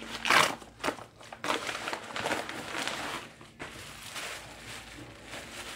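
Yellow mailer envelope being torn open and rummaged through, its packaging crinkling in a run of rustling bursts that die down after about three and a half seconds.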